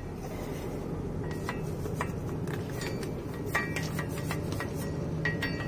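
Hand scraping and brushing rust off the steel face of a wheel hub, a steady rubbing with scattered light metallic clicks and clinks as the tool knocks against the hub and studs.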